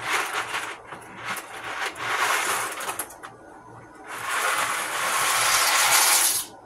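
A box of deluxe mac and cheese handled and its dry pasta poured into a pot, rustling and rattling in three bursts. The longest burst starts about four seconds in and lasts a little over two seconds.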